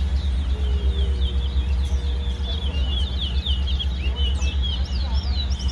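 Caged songbirds in a bird-singing race, singing a fast twittering song of short, rapid chirps that grows busier towards the end. A steady low rumble runs underneath.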